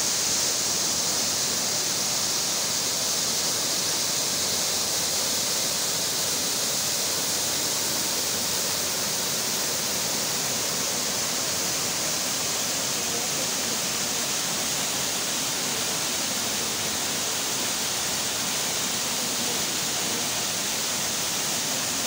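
Waterfall pouring into a muddy, swollen plunge pool: a steady, unbroken rush of falling water.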